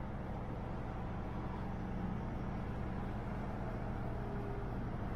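Inside the cabin of a BMW E90 328i cruising on a highway: a steady low drone of engine and road noise. The stock exhaust is quiet enough that the engine's note barely stands out.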